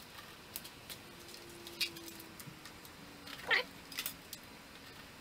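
Light clicks and knocks of a cable being handled and plugged into a bare hard drive on a metal bench, with one short squeal about three and a half seconds in.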